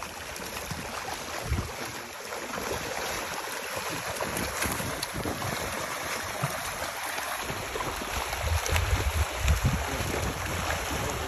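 Many fish thrashing in a seine net drawn in to the bank, a steady churning splash of water with low thuds from about eight seconds in.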